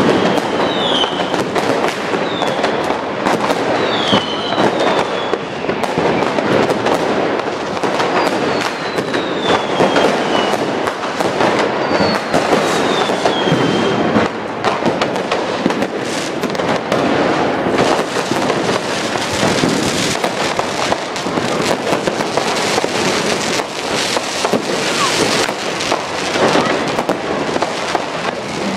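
New Year's Eve street fireworks: rockets and firecrackers going off in dense, continuous bangs and crackling. In the first half, several fireworks whistles fall in pitch, some short, two drawn out over about two seconds each.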